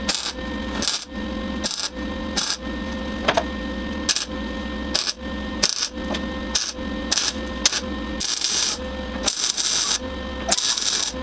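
Welding arc crackling in short bursts, stopping and starting every half second or so, over a steady hum: stitch or tack welding of sheet metal.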